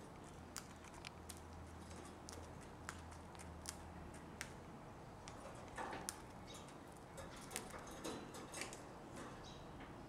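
Cockatiels eating millet seed from a plastic tub: faint, sharp, irregular clicks, a few each second, as their beaks crack the seeds and peck at the tub.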